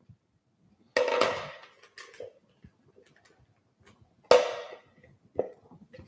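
Two sharp knocks with a short ring, about a second in and again about four seconds in, as a spatula and a mixing bowl of almond cream are handled, with lighter clicks between.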